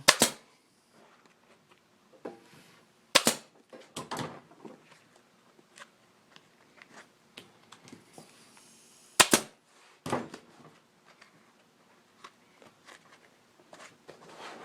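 Staple gun driving staples through seat-cover fabric into a motorcycle seat pan: sharp snaps, some in quick pairs, at the start, about three seconds in and about nine seconds in, with quieter handling clicks between.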